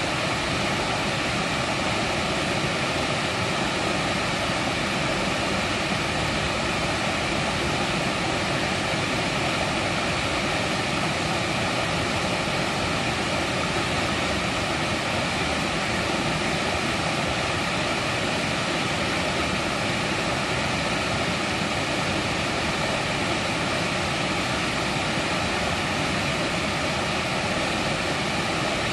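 Mountain valley stream flowing, a steady, even rushing of water with no letup.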